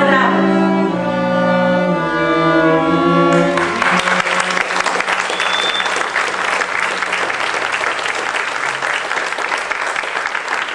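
Music with held notes ends about three seconds in, and the theatre audience breaks into applause, which goes on steadily.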